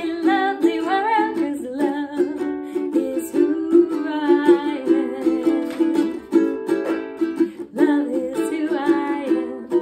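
A ukulele strummed in a steady rhythm, with a woman singing a cheerful song over it.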